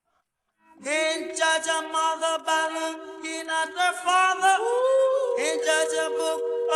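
A song with a singing voice holding long, drawn-out notes. It starts about a second in after a brief silence, and the notes step up in pitch about halfway through.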